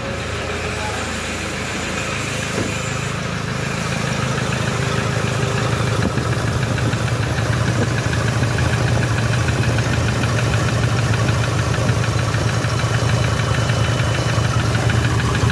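2007 Toyota Hilux 3.0 turbodiesel engine running with a knock, getting a little louder over the first half. The mechanic takes the knock for the characteristic sound of a worn connecting rod (rod knock).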